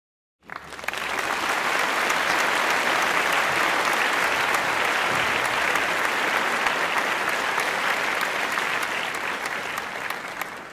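Crowd applauding, a dense steady clapping that starts abruptly about half a second in and eases slightly just before it stops.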